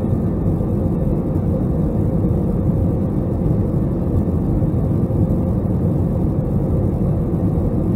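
Steady cabin noise of an Airbus A321 on approach: engine and airflow rumble heard from a window seat over the wing, with a faint steady tone above it.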